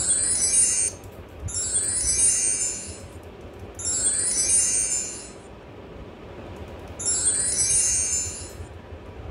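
A short, high-pitched shimmering chime sound effect from the laptop, played four times at uneven gaps, each lasting a little over a second, as the presentation slides advance.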